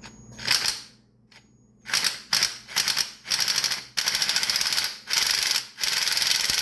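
Ratchet wrench with a spark plug socket clicking in repeated back-and-forth strokes, loosening a tight spark plug. The strokes start short and grow longer as the plug frees up.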